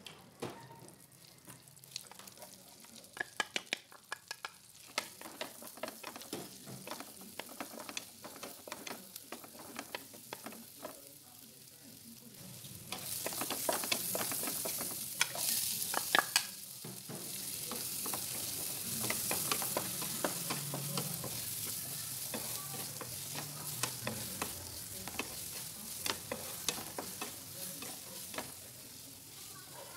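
Butter sizzling in a nonstick frying pan, with frequent clicks and scrapes of a wooden spatula against the pan. About thirteen seconds in the sizzle turns much louder and fuller as chopped garlic and onion go in to sauté and are stirred.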